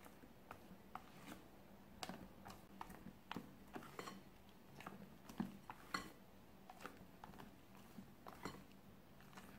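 Spatula folding meringue into chiffon cake batter in a glass bowl: faint soft squelches of the wet batter and irregular light clicks of the spatula against the glass, with two sharper knocks around the middle.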